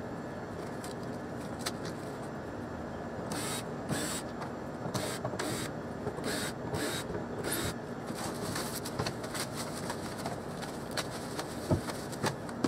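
Plastic sheeting rustling and crinkling in a string of short rasps as a foam mold is stripped by hand, over a steady background hum, with a few sharp knocks near the end as wooden mold pieces come away.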